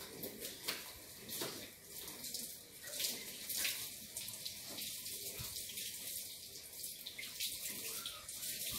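Water running, a steady hiss with scattered small splashes and clicks.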